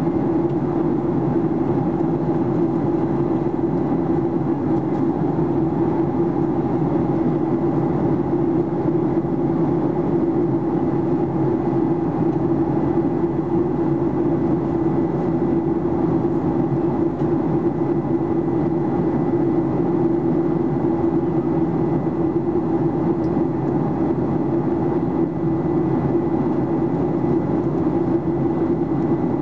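Steady drone of a Boeing 737-800's CFM56-7B turbofan engines and rushing air heard inside the passenger cabin in flight, with a thin, steady high whine above it.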